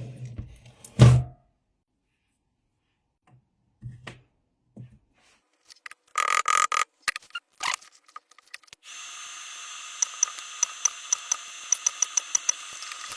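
Bench work on a lithium scooter battery pack as a faulty cell is swapped: a hard knock, a few light knocks and a short rattle, then a steady hiss with a quick run of sharp clicks.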